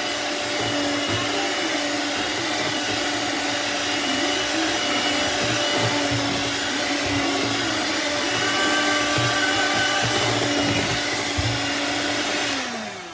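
Electric hand mixer running steadily, its beaters whipping a thick cream of butter and condensed milk in a bowl. Near the end the motor winds down and stops as the cream is finished.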